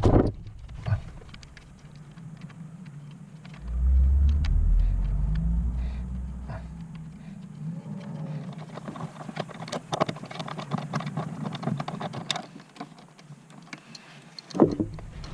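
Scattered metallic clicks and taps of hand tools working on car parts in an engine bay, with a low rumble from about four to seven seconds in.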